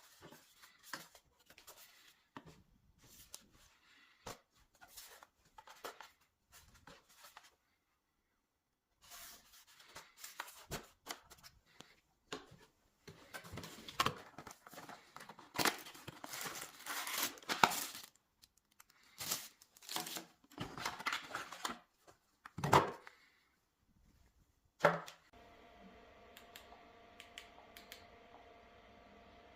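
Packaging being unwrapped by hand: tearing and crinkling of wrapping with knocks and handling noises, loudest in the middle. Near the end a steady hum with faint held tones sets in.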